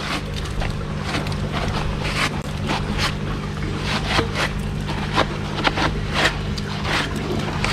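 A hand brushing dust and grit out of a concrete storage box, making a run of short, irregular scraping strokes over a steady low hum.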